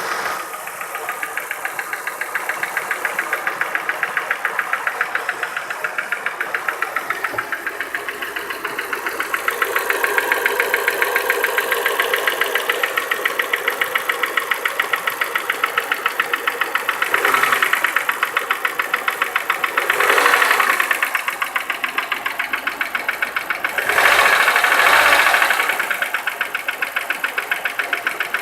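Chevrolet Niva's 1.7-litre four-cylinder engine running with a rapid, even ticking knock from under the valve cover. The engine noise swells louder three times in the second half.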